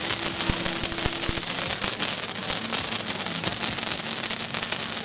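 Fireworks crackling and hissing densely and steadily, a run of tiny pops like rain, with a few heavier pops in the first second or so.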